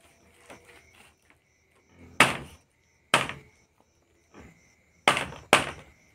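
Knife chopping raw meat on a wooden log chopping block: four loud chops, the last two in quick succession near the end, with lighter knocks between.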